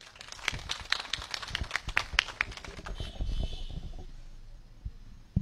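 Scattered hand claps from a small audience, several sharp claps a second, thinning out after about three seconds. A single low thump near the end.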